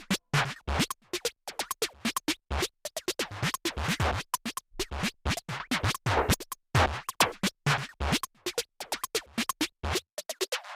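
Electronic music chopped into rapid, irregular short fragments with brief gaps between them, giving a stuttering, scratch-like sound. Near the end the bass drops out.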